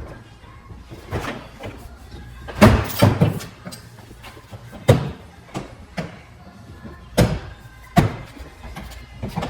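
A series of irregular knocks and clunks from body-shop work, about half a dozen sharp impacts, the loudest a little under three seconds in and again at about five seconds, over a low steady hum.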